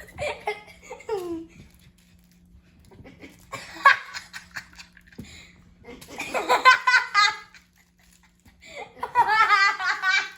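Chihuahua puppy making excited, laugh-like vocal sounds in three high-pitched, wavering bursts, about three seconds apart.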